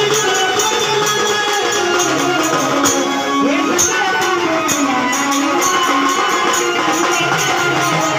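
Live Marathi devotional folk music: a keyboard playing a wavering melody over drums, with jingling hand percussion keeping a fast, steady beat.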